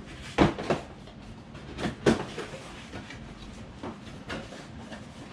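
A cardboard rifle box being opened and its packaging handled: several short scrapes and knocks, two close together near the start, two more about two seconds in, and two near the end.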